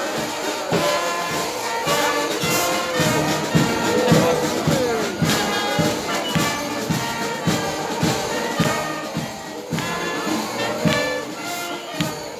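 Brass band playing a lively tune over a steady drum beat, with crowd voices underneath.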